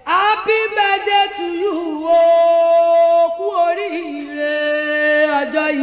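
A solo voice singing a Yoruba birthday praise song, holding long notes and sliding between them.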